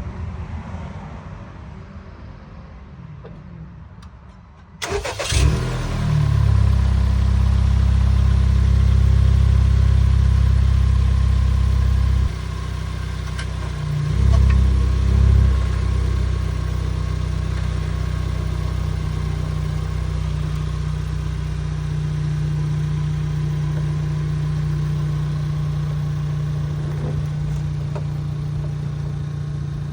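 Car engine cranked and started about five seconds in, running at a raised idle, then dropping to a lower idle. Two brief revs follow, and then it idles steadily.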